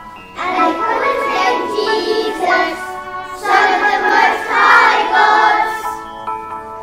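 A class of primary-school children singing a Christmas song together over backing music, the line 'Jesus, the Saviour, Son of the Most High God'. The singing stops about six seconds in and the accompaniment plays on alone.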